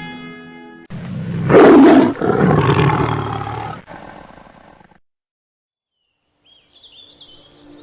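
A lion roars once, loudest in its first second and dying away over about four seconds. It follows a brief snatch of plucked-string music and is followed by faint high bird chirps near the end.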